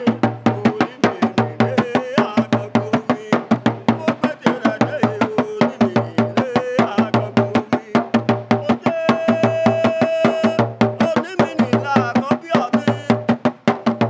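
Background music: a fast, even percussion beat over a repeating bass note and a melody, with one high note held for about a second and a half about two-thirds of the way through.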